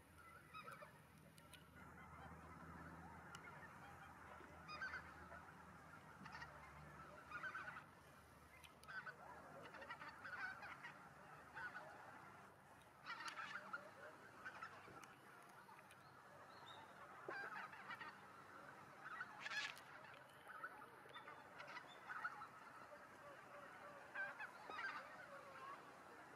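Faint, distant flock of wild geese calling: a constant chatter of overlapping honks, with a louder single call standing out every second or two.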